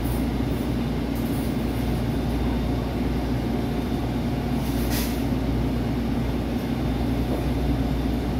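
Inside a SEPTA Kawasaki light rail trolley standing at a station: a steady hum of the car's onboard equipment, with a short hiss about five seconds in.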